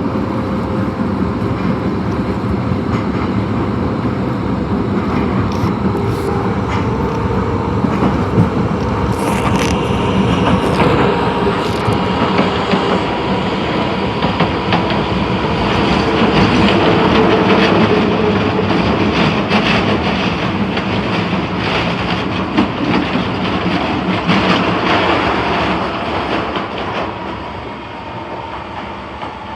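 Osaka Metro Tanimachi Line 22 series subway train running along the track: steady running noise with a faint steady whine and scattered wheel clicks, growing quieter near the end.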